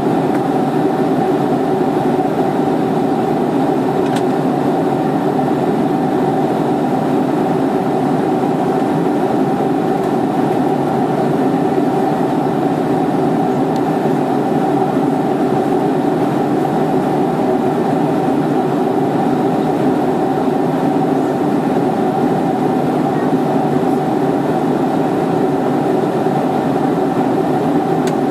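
Steady cabin noise of an airliner in level flight, heard from inside the cabin: an even rushing hum of airflow and jet engines that does not change.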